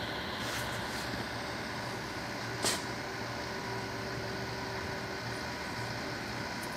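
Steady drone of heavy diesel machinery at work on the site, with a brief sharp hiss about two and a half seconds in.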